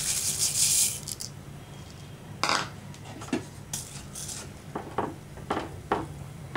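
Dry roasted vermicelli rustling as it is poured into a pan of hot milk, stopping suddenly about a second in. After a short lull, a wooden spatula stirs the pan, knocking and scraping against its side in a string of short taps.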